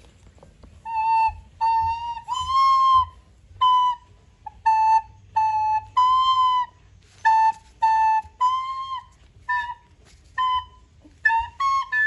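A child playing a simple tune on a recorder, one clear note at a time, moving back and forth between two or three neighbouring notes with short gaps between them.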